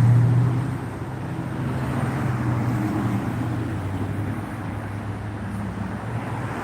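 Steady low hum of a motor vehicle engine running, with road and traffic noise; it eases slightly after the first second and then holds steady.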